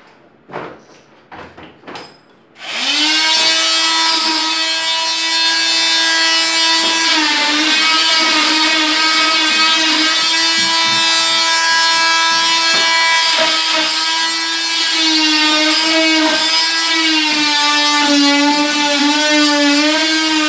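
A few light knocks, then a handheld corded power tool starts about two and a half seconds in and runs steadily with a high whine, its pitch sagging slightly now and then as it bears on the work at the wall edge.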